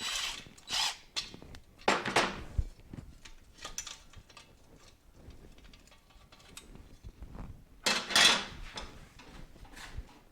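Hand tools and metal parts clanking and rattling during motorcycle disassembly, in a few loud clatters with lighter clicks between.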